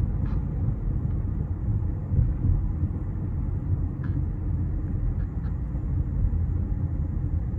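Steady low rumble of road and engine noise inside a Chevy Malibu's cabin as it drives in slowing highway traffic.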